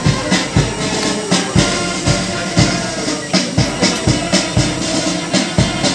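Brass band playing march music, with a steady bass drum beat about twice a second under the horns, to keep time for a parade march past.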